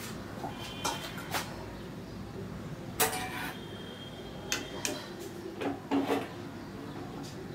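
Several sharp metal clinks and clanks from a steel pot lid and steel pot tongs handled over a steel kadai, a few of them ringing briefly. The loudest comes about three seconds in.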